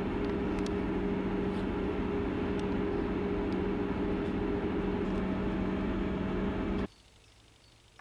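Steady running noise of a vehicle heard from inside, with a constant low hum; it cuts off suddenly about seven seconds in, leaving only faint background.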